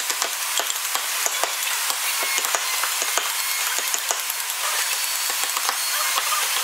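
Steel carving chisels and gouges working a wooden relief panel by hand, making many irregular sharp clicks and scrapes over a steady hiss.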